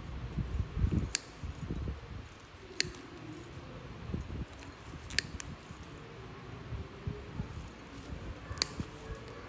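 Nail nippers clipping a thick, fungus-damaged toenail: about five sharp snips, irregularly spaced, over low rustling from handling the foot.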